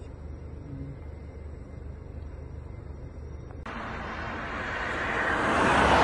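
A low steady rumble, then from about four seconds in a car driving past close by, its road noise swelling to a loud peak near the end and starting to fade.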